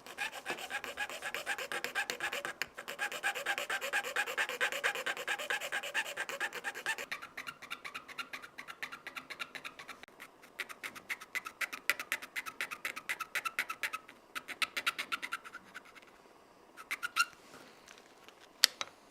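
A small hand tool rasping back and forth on a plastic knife scale, enlarging the slot entrance. It starts as fast continuous strokes, then slows to separate strokes about four or five a second, and two sharp clicks follow near the end.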